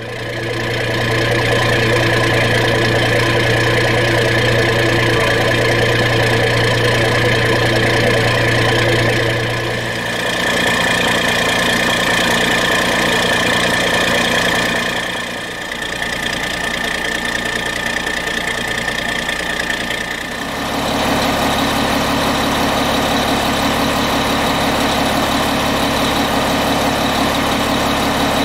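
Snowcat diesel engines idling steadily, in three stretches whose tone changes suddenly about ten seconds in and again about twenty seconds in.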